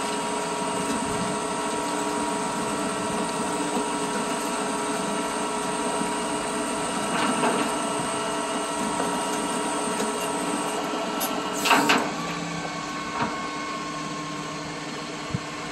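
Tow truck winch and hydraulics running with a steady mechanical whine while the chain drags a wrecked car toward the tilted bed. A short, louder noise cuts in about twelve seconds in.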